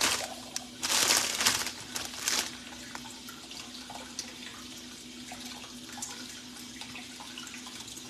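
Crinkling of plastic in short bursts over the first two and a half seconds, then a steady faint hiss with a low hum underneath.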